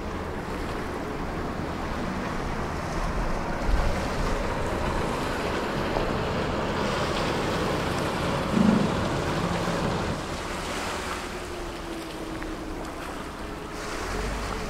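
Commuter passenger boat under way: water rushing along the hull over a faint engine tone that drops in pitch after about ten seconds, with wind buffeting the microphone. Two dull thumps break in, the louder one about two-thirds through.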